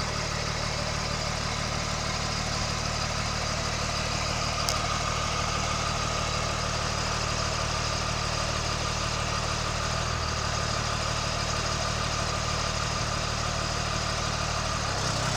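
Caterpillar 120H VHP motor grader's diesel engine idling steadily, with a faint steady whine above the engine note.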